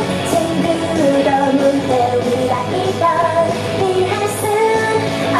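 K-pop song with a female lead vocal, played loud through a stage sound system.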